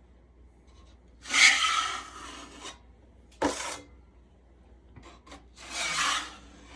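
Drywall knife scraping joint compound across a wall: two long swipes with a short, sharp stroke between them.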